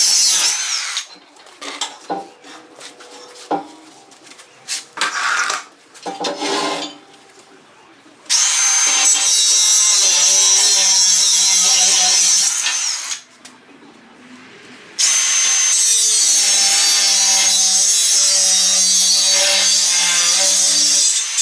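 Angle grinder cutting the steel of a barbecue smoker with a high whine, in long runs of several seconds that stop and start again. Between runs come scattered short knocks and brief bursts of the tool.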